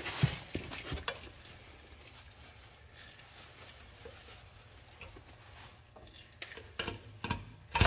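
A pry bar clicking and scraping against a stuck oil filter in a tractor's oil filter housing: a few sharp clicks at the start, a quiet stretch, then a cluster of metal knocks near the end.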